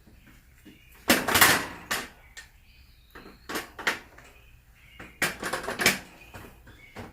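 Metal seat-suspension bracket being shifted and scraped against the mower seat base, with a few sharp knocks, as its holes are lined up: two longer scraping rasps and a short run of clunks between them.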